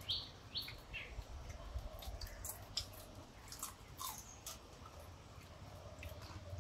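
A few short bird chirps in the first second, then scattered faint snaps and crunches of crisp fried raw banana chips being broken by hand and chewed.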